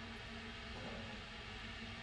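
Faint steady hiss with a low, steady hum underneath: background noise of a live feed between countdown callouts, with no distinct event.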